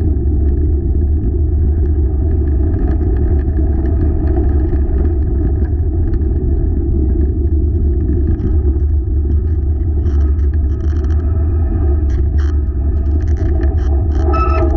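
Wheeled dog-sled rig rolling along a trail: a steady, loud rumble of wheels with wind on the microphone, with a few sharp rattles in the last few seconds. Guitar music starts just before the end.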